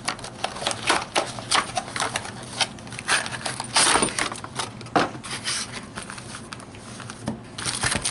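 A pedal box being opened and its contents handled: cardboard and plastic packaging rustling, with many small hard clicks and clinks of parts being taken out.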